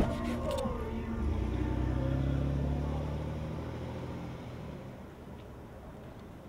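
A Ford sedan driving away: its engine and road noise swell briefly, then fade steadily as it moves off.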